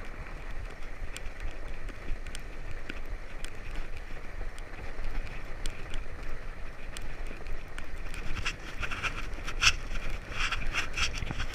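Fatbike riding over packed snow: the steady rumble of the wide tyres rolling, with a buffeting low rumble of wind on the microphone. Scattered crisp clicks and crunches run throughout and come thicker near the end.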